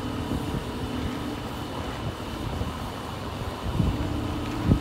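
Heavy diesel machinery running steadily with a low hum, which fades after the first second and comes back near the end, with wind on the microphone. A dull thump sounds just before the end.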